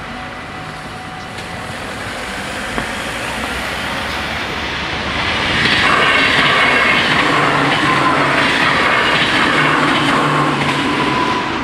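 NS ICMm (Koploper) electric multiple unit passing over a level crossing. The rumble and clatter of wheels on rails builds over the first few seconds, is loudest from about six seconds in while the carriages go by, and eases near the end.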